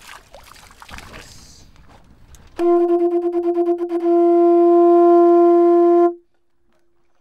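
Conch shell trumpet blown in one long, loud horn-like note that starts about two and a half seconds in, wavers at first, then holds steady for a few seconds before cutting off. Before it, only a soft rushing noise.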